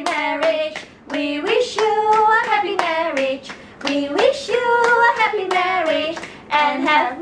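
Several women singing a tune together while clapping their hands in time.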